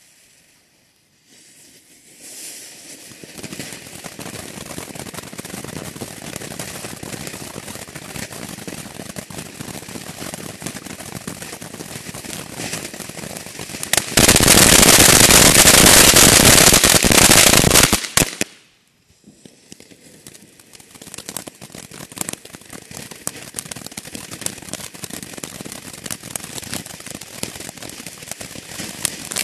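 "Fiery Frog" ground-fountain firework spraying sparks with a steady hiss and dense crackling, starting up about two seconds in. About 14 s in it becomes much louder for some four seconds, cuts off abruptly, then the crackling picks up again and builds.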